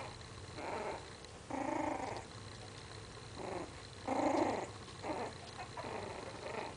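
A five-week-old Maltese puppy growling in about six short bursts, each under a second long, with pauses between them.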